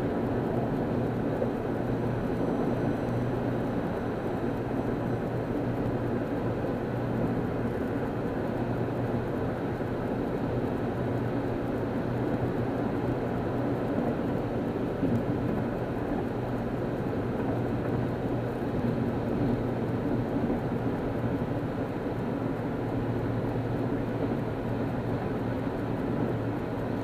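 Steady road noise inside a car cruising on a freeway: a low hum of engine and tyres under a constant rush of wind.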